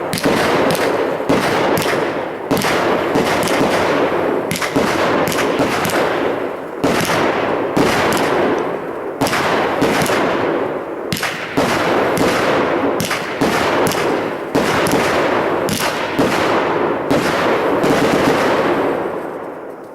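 Aerial fireworks going off in a dense, rapid barrage: shell bursts and crackling bangs following each other with barely a pause, dying away near the end.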